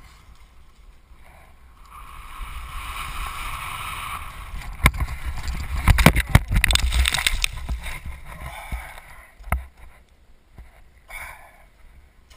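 Mountain bike crash heard from the rider's GoPro: tyre and wind noise over a dirt trail builds, a sharp knock comes about five seconds in, then a burst of heavy impacts and scraping about six seconds in as rider and bike hit the ground. Afterwards quieter scuffs and knocks on dirt as the rider gets up and moves about.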